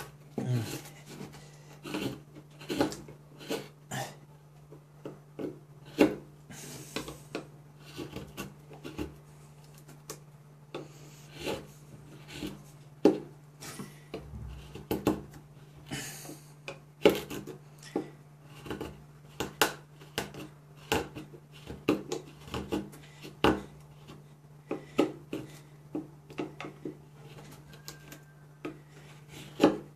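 Mora Companion MG carbon-steel knife carving a pine block: an irregular string of short cuts and cracks as shavings split off, about one or two a second, some much sharper than others. A steady low hum runs underneath.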